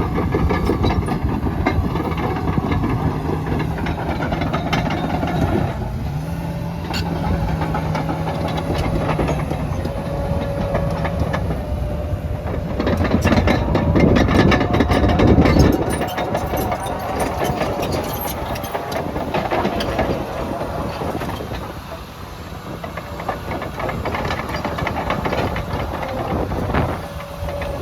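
John Deere 950J crawler dozer's Liebherr diesel engine running under load, with the steel tracks clanking as it pushes dirt. It gets louder for a few seconds about halfway through.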